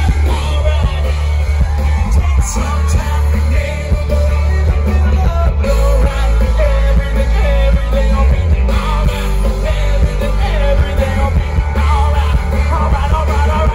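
Live rock band playing loudly, with electric guitars, drums, heavy bass and a singer, heard from the crowd in front of the stage.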